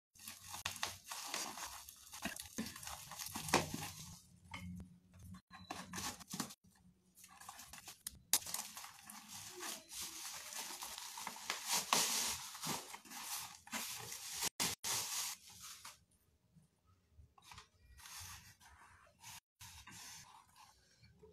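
Black plastic bubble-wrap packaging being torn open and pulled off by hand, a crinkly tearing and rustling in bursts. It grows sparse and quieter for the last few seconds.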